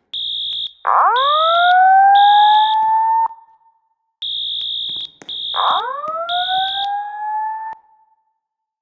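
Building fire alarm evacuation tones, two cycles of them. Each cycle is a high-pitched beep sounded three times in the temporal-three evacuation pattern, overlapped by a whoop tone that sweeps upward for about two seconds.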